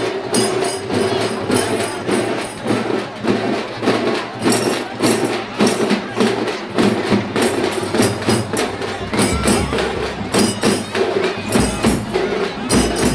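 Traditional festival percussion playing a steady beat of about three strokes a second, with jingling, clacking hits over a constant drone and the noise of a large crowd.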